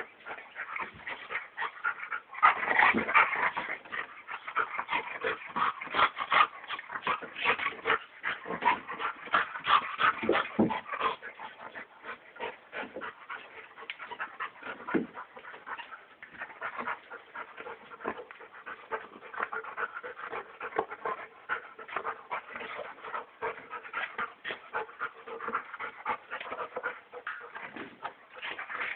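Two dogs play-wrestling: a busy, irregular run of short dog sounds and scuffles, loudest and busiest in the first ten seconds or so, then easing off.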